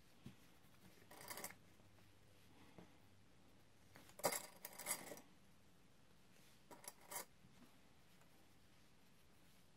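Brief rustles and small clicks of hands working a fabric binding strip and its clips along a patchwork quilt's edge during hand sewing, in three short bursts about one, four and seven seconds in, the middle one the loudest. Otherwise near silence.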